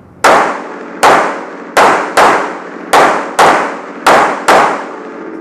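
Eight pistol shots fired in quick succession, loosely in pairs about half a second apart, each trailing off in a ringing echo.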